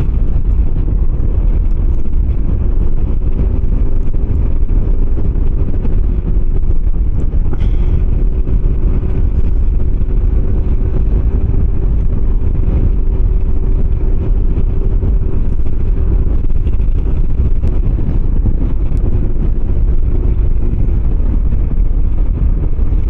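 Kymco 125cc scooter engine running at a steady cruising speed, its note dipping slightly a couple of times, under heavy wind and road rumble on the microphone.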